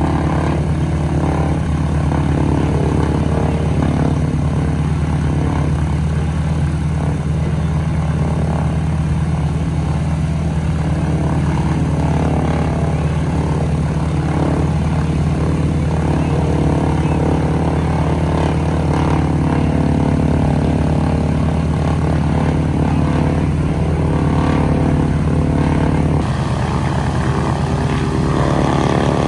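North American Harvard's Pratt & Whitney R-1340 nine-cylinder radial engine running steadily at low power as the aircraft taxis, with its propeller turning. The engine note shifts slightly near the end as the plane turns.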